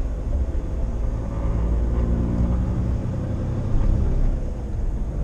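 Truck engine and tyres heard inside the cab at motorway cruising speed: a steady low rumble with no sudden events.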